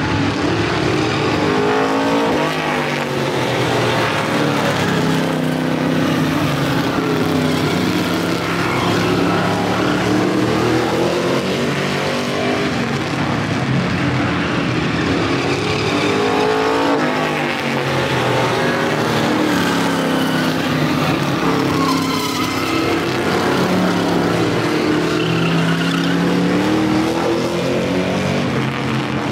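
A pack of street stock race cars running on a short oval, their engines climbing in pitch as they accelerate and dropping as they lift off, over and over as the field laps. Several engines sound at once and overlap.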